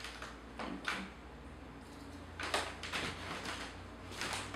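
A few short, soft rustles and knocks of movement and handling, scattered irregularly with a cluster of them in the middle.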